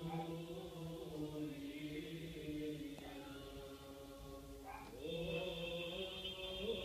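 Slow chanted vocal music with long held notes. It grows quieter midway, then a louder phrase comes in about five seconds in.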